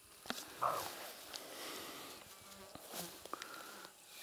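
Soft rustling and a few sharp clicks close to the microphone, with insects buzzing faintly.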